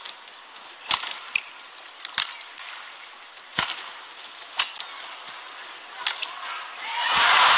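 Badminton rackets striking the shuttlecock in a rally, sharp cracks about once a second. Near the end a crowd's cheering and applause swells loud as the point is won.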